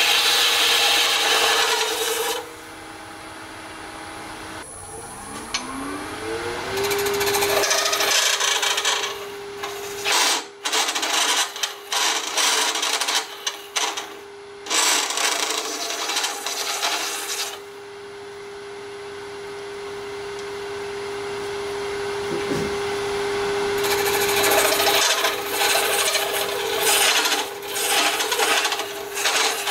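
Wood lathe spinning a cast resin globe while a hand-held tool hollows it, giving a rough scraping, cutting noise that comes in stretches and pauses. Under it the lathe's hum rises in pitch about five seconds in and then holds steady.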